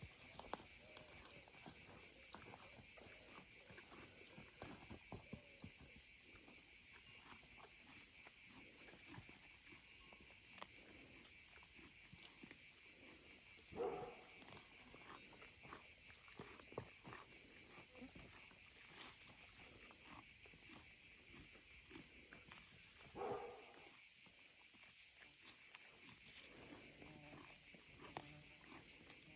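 Faint, steady chorus of insects such as crickets, with scattered small footsteps and rustles. Two short animal calls come through, about halfway in and again near three-quarters of the way.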